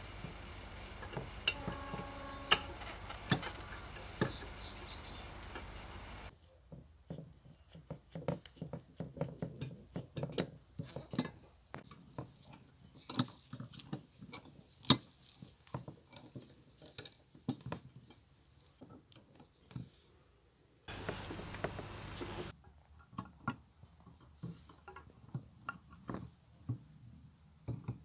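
Small metal parts of an old kitchen balance scale clicking and clinking as they are fitted together by hand: pins, small steel pieces and levers set into the metal frame. Irregular light taps throughout, over a steady hum that stops about six seconds in.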